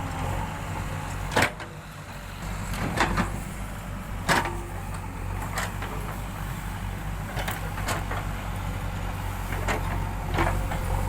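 Backhoe loader's diesel engine running steadily, with sharp knocks every second or so, the loudest about a second and a half in.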